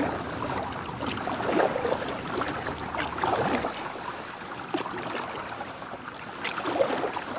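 Kayak paddle dipping and splashing in river water, with scattered splashes and drips every second or two over a steady wash of water noise.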